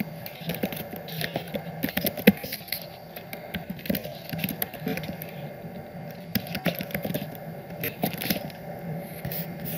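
Computer keyboard keys clicking in quick, irregular runs as someone types.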